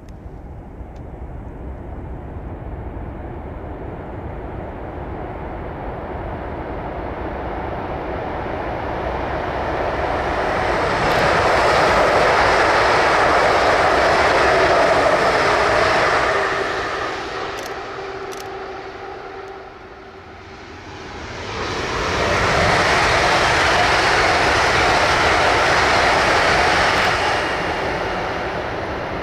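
ICE high-speed electric train passing at speed by a tunnel portal: a rushing noise that builds, swells loud twice with a dip between, then fades.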